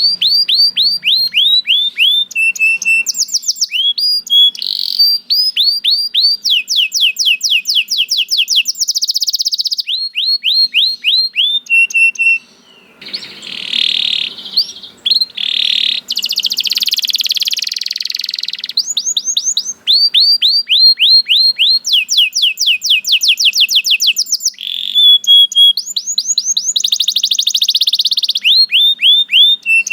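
Domestic canary singing a long song made of rapid trills: runs of quick, repeated downward-sweeping notes that switch to a new trill every second or two, with a harsher, buzzy passage about halfway through.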